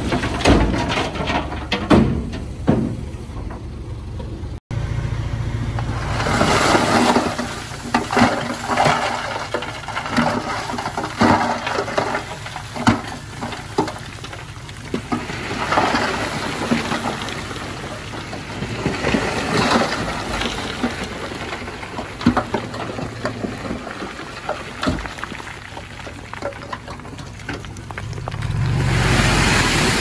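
Komatsu D51PX bulldozer working, pushing stone: the diesel engine runs under load while rock grinds and scrapes and the tracks clank, in irregular swells with many sharp knocks. The sound cuts out for an instant about four and a half seconds in.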